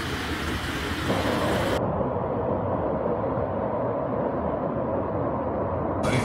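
Loud, steady rushing of muddy floodwater pouring through a street. The sound changes abruptly about two seconds in and again near the end, where separate recordings are cut together.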